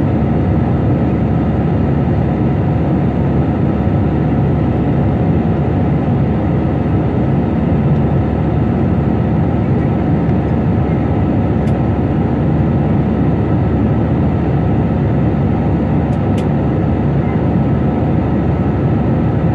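Steady cabin noise of a jet airliner in flight: engine and airflow sound heard from inside the cabin, deep and unchanging, with a faint steady whine above it.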